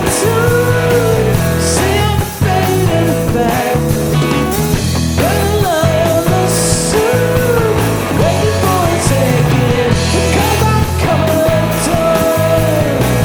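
A rock band playing live: a gliding lead line over bass and drums, with repeated cymbal crashes.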